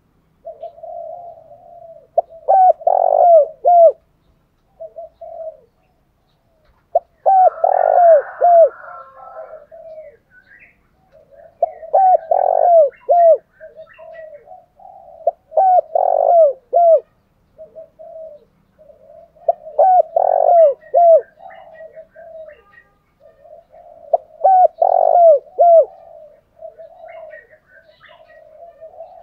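Spotted doves cooing. A loud run of short, falling coo notes comes back about every four seconds, with softer low coos between. These are the fast cooing and calling songs used to stir up a trained decoy dove.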